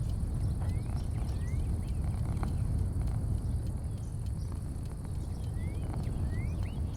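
Outdoor porch ambience: a steady low rumble under a steady high-pitched hiss, with birds giving short rising chirps several times and a few faint ticks.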